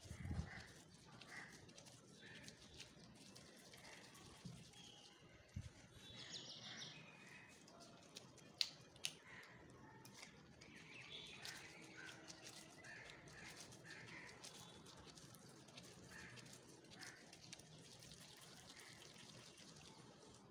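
Faint handling sounds of plastic-gloved hands rolling a ball of dough against a floured glass bowl: light rustling, small squeaks and a few soft taps.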